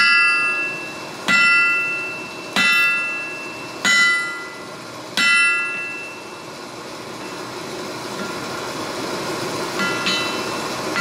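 Hand hammer striking a red-hot steel bearded-axe blank on an anvil: five blows about a second and a third apart, each leaving the anvil ringing, then a lighter blow near the end. A steady hum runs underneath.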